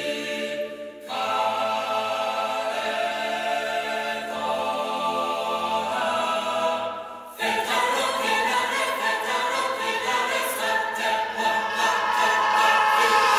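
Choir singing sustained chords as dramatic background music. The chords shift every second or two, and the singing grows fuller and louder near the end.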